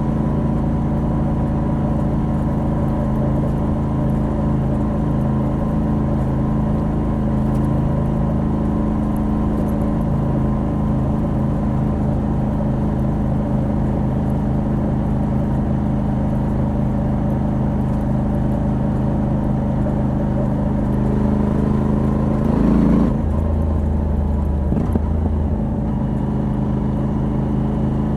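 Moto Guzzi V85TT's air-cooled transverse V-twin running steadily under way, through the stock exhaust with a Mistral de-cat pipe. Near the end the engine note briefly swells and its pitch shifts, then settles again.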